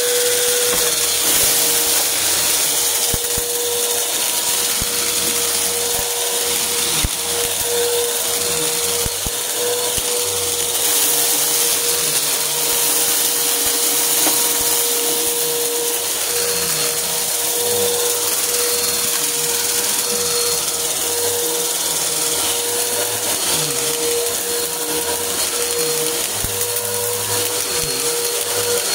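Bagless upright vacuum cleaner running on carpet: a steady motor whine with a constant rushing of air, and a few brief crackles as it sucks up scattered crunchy bits.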